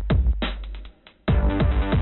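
Background electronic music with a steady beat. It drops out for a moment about a second in, then comes back in fuller.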